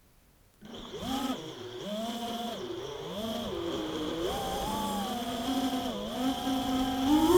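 FPV mini quadcopter's electric motors and propellers spinning up about half a second in, then a buzzing whine that rises and falls in pitch with the throttle, several times in a row. It gets louder and higher near the end as the throttle is pushed up.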